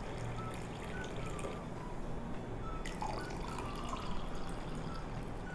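Juice pouring in a thin stream from a steel tumbler into a tall glass and filling it, a steady trickle with short bright plinks from the liquid as it lands.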